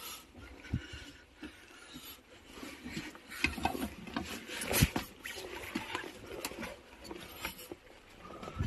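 Irregular knocks, scrapes and crunches of someone clambering over rock and loose stones in a narrow mine tunnel, with the sharpest knock about five seconds in.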